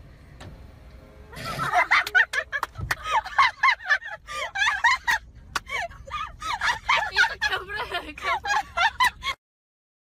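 Dogs barking and yelping at each other across a fence in rapid high-pitched yips, several a second. The calls start about a second and a half in and cut off suddenly near the end.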